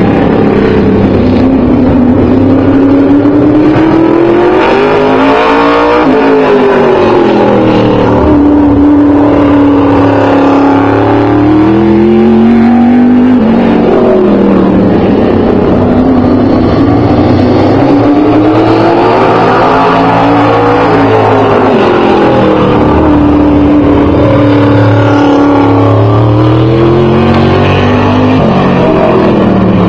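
Engine of an open-wheel modified race car lapping a short oval track alone at speed. The engine revs rise and fall in a repeating cycle about every seven seconds, once per lap.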